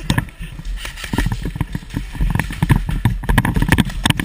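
Quick running footsteps thumping on a hard concrete floor, with more scattered knocks among them.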